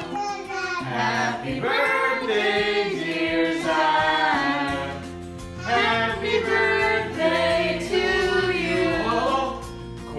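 Several voices singing together, in phrases a few seconds long with short breaks between them.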